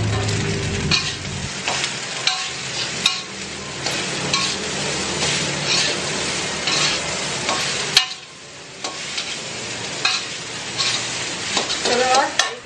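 Fried rice being stir-fried in a metal wok over a gas flame: the spatula scrapes and knocks against the pan again and again over a steady sizzle, with a short lull about eight seconds in.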